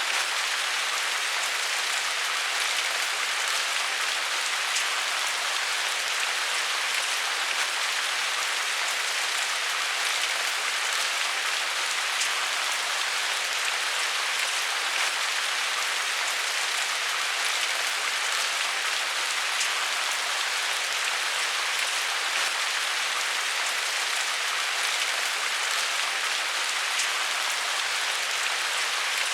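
Steady rain falling and pattering on a surface, an even hiss with fine scattered drop ticks.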